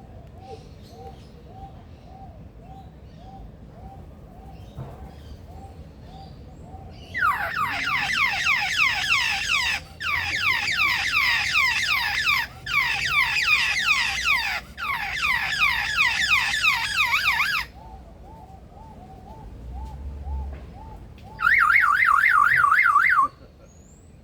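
Male superb lyrebird mimicking a car alarm: loud runs of rapid rising-falling sweeps, about four a second, in several bursts broken by short pauses, then a shorter, fast warbling alarm tone near the end. A faint call repeats about twice a second underneath.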